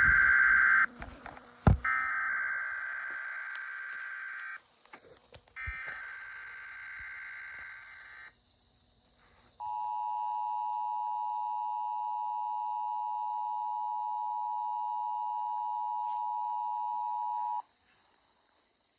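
Emergency Alert System test over the radio: three screechy SAME digital header bursts, each a couple of seconds long and each fainter than the last, with a sharp click after the first. After a short gap comes the steady EAS two-tone attention signal for about eight seconds, which cuts off cleanly.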